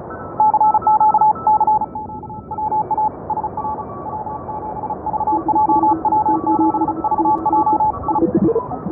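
Morse code (CW) from several amateur radio stations on the 20 metre band, received by a Soft66LC2 software-defined radio: keyed beeping tones at a few different pitches, overlapping, over steady band hiss.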